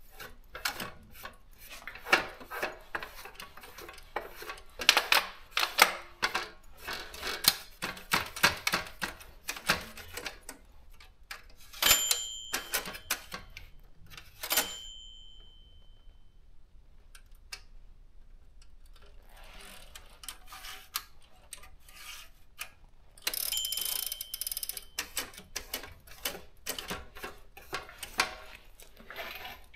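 Daro 20 typewriter's mechanism clicking and ratcheting as the machine is handled and its parts are moved, with the carriage bell ringing twice around the middle and fading out.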